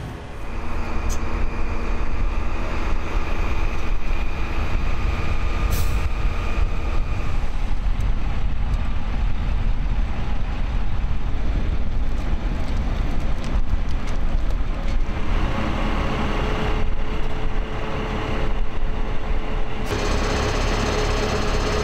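Heavy military truck diesel engines running with a steady low rumble. A faint steady tone joins over the rumble about fifteen seconds in.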